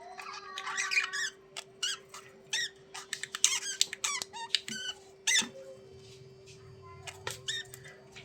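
Budgerigars chattering and warbling: rapid short, squeaky chirps that thin out over the last couple of seconds.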